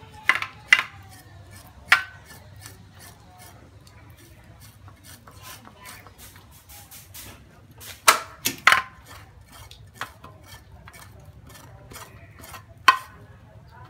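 Knife blade scraping a water snake on a stainless steel tray, with quick scraping clicks and several sharp metallic knocks of the blade against the tray, the loudest clustered about eight seconds in and once near the end.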